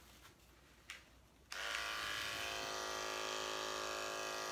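Electric animal clippers switched on about a second and a half in, then running with a steady buzz as they shave the wool off an Angora rabbit's belly.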